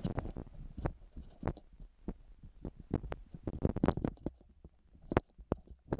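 Irregular clicks and knocks of a metal rod worked through the handle pivot of a trolling motor mount to drive out the hinge pin. The sharpest knocks come about four and five seconds in.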